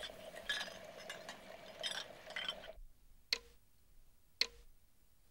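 A wall clock ticking, three sharp ticks about a second apart. They come after a couple of seconds of faint kitchen clinks over a thin steady hum, which cut off about halfway through.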